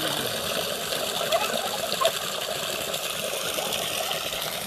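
Water from a hose pouring steadily into a plastic bucket, filling it.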